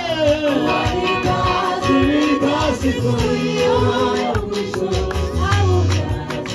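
Gospel music: voices singing over a steady beat and a bass line.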